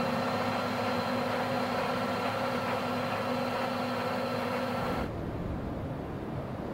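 Farm tractor's diesel engine running steadily as it pulls a cultivator. About five seconds in it cuts off abruptly, leaving a quieter, even rushing noise.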